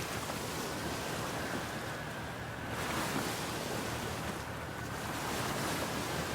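Steady rushing outdoor noise that swells and eases every second or two, with a faint, steady high tone running underneath.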